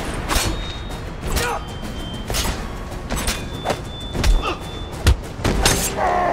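Movie fight sound effects: a quick run of punches, blows and heavy thuds of bodies hitting the floor, about one or two a second, over a dramatic music score, with a man's cry near the end.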